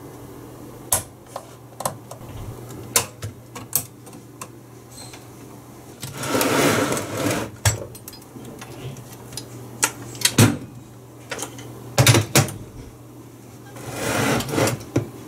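Clicks, knocks and scraping of a stainless steel payphone housing being handled and its hinged front swung shut, with sharp knocks about ten and twelve seconds in.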